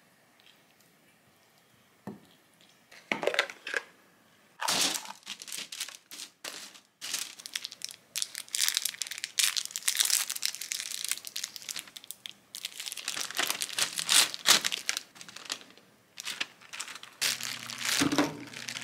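Parchment paper crinkling and rustling in a wire air-fryer basket as fried chicken pieces are set on it with tongs, in stop-start bursts that begin about two seconds in. A low steady hum comes in near the end.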